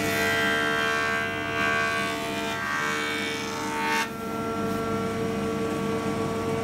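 Jointer running with a steady whine while its cutterhead planes the face of a reclaimed hardwood board. The cutting noise stops sharply about four seconds in as the board clears the knives, and the machine keeps running.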